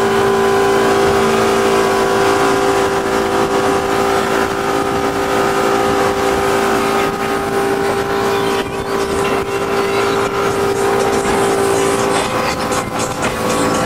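Yamaha V6 200 outboard motor pushing a speedboat at steady speed, a steady drone over the rush of water and wind; its tone changes near the end.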